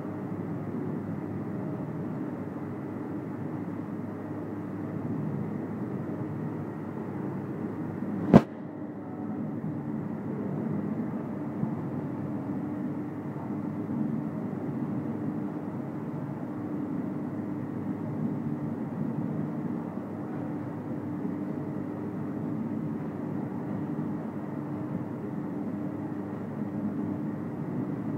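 Olive mill's large grinding wheels turning, crushing olives into a thick paste: steady machine noise with a constant hum. A single sharp click about eight seconds in.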